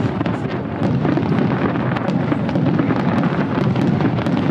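Fireworks display: many quick crackles and pops over a continuous low rumble, with no single standout bang.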